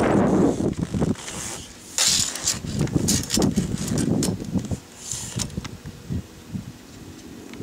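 Tape measure being pulled out and laid across a boat's hard top, with irregular scraping and rustling of handling, loudest about two seconds in.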